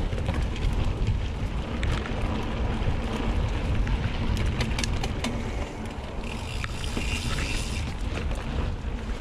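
Mountain bike riding over a dirt and gravel track: wind buffeting the microphone over the rumble of the tyres, with frequent rattles and knocks from the bike going over bumps. A hiss comes in about six seconds in and lasts under two seconds.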